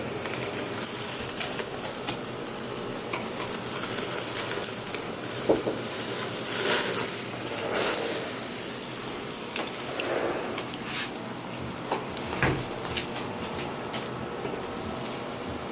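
Ribeye steaks sizzling on a grill, a steady hiss broken by a few short clicks and knocks.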